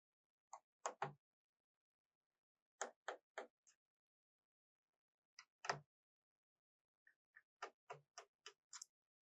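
Faint, sharp clicks of a screwdriver working the small bottom-case screws of a Lenovo Legion Y545 laptop. They come in short groups of two to four, with a quicker run of about seven ticks near the end.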